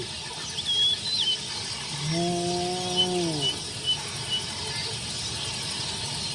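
Spotted hyena giving one drawn-out call about two seconds in, held level and then falling away at the end. Thin bird chirps and crickets sound throughout.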